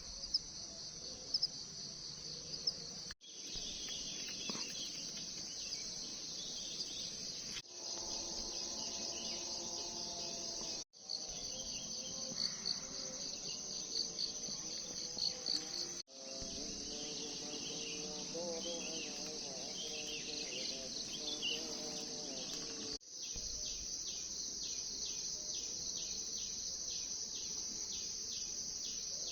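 Dense chorus of insects buzzing in a steady high band, with bird calls warbling underneath through the middle part. Near the end the insects pulse at about three a second. The sound drops out briefly a few times where clips are joined.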